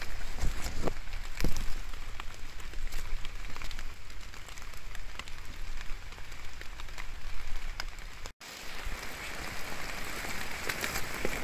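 Heavy rain falling on the forest floor and foliage: a steady hiss dotted with many sharp drop ticks. There are a few dull knocks in the first two seconds, and the sound cuts out for a moment about eight seconds in.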